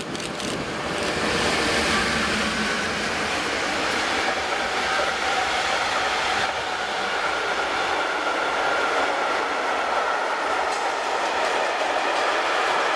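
Freight train of tank wagons passing close by behind an electric locomotive: the steady rumble and clatter of wagon wheels on the rails. It grows louder about a second or two in as the locomotive goes past, then holds steady as the wagons roll by.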